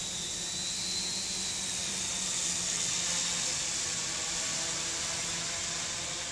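Multirotor drone (Naza UAV) flying, its motors and propellers giving a steady hiss with a high whine that wavers slightly in pitch.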